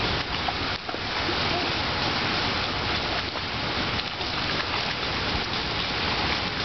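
Steady rush of water with splashing as children wade and swim in a pool.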